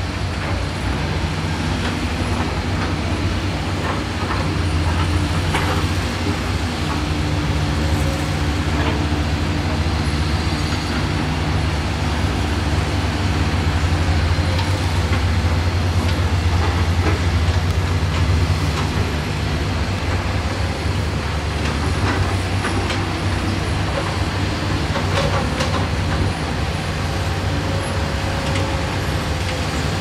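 Diesel engines of several Kobelco, Cat and Zoomlion hydraulic crawler excavators running steadily under load as they dig, a deep continuous drone, with a few faint knocks scattered through it.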